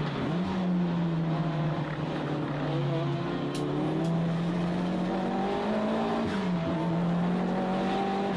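Toyota Starlet Glanza (EP91) race car's four-cylinder engine driven hard on track, heard from inside the cabin. Its pitch climbs steadily through the gears, dipping briefly and picking up again at gear changes near the start and about six seconds in.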